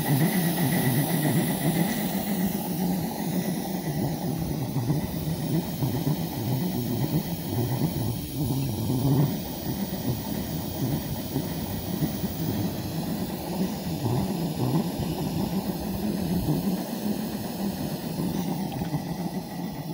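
Butane gas burner of a live-steam model locomotive burning in the firebox with a steady, rough rumble.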